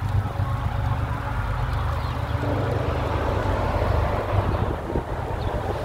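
Wind rumbling steadily on the microphone of a camera riding on a moving bicycle.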